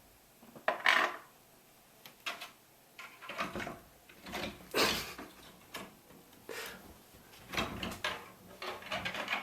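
Irregular knocks, clicks and rattles of a lock and its door or cover being worked at by hand while someone tries to pick it open.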